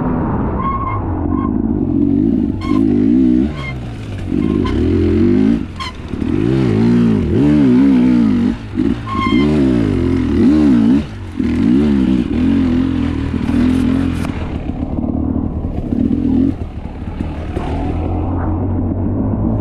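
Dirt bike engine heard from the rider's helmet, revving up and dropping back over and over as the throttle is worked and gears change through mud. A few sharp knocks are mixed in.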